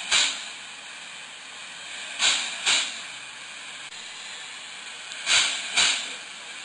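Steam locomotive letting off steam in short hissing bursts over a steady background hiss. The bursts come in pairs about half a second apart, one pair every two and a half to three seconds.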